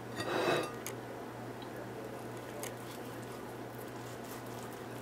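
Kitchen knife slicing through a pan-fried chicken embutido on a ceramic plate: a brief scrape as the blade cuts the browned crust, then faint soft cutting sounds over a steady low hum.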